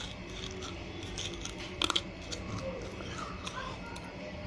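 A piece of baked clay pot crunched between the teeth, with a sharp crunch about two seconds in and smaller gritty crunches and chewing around it.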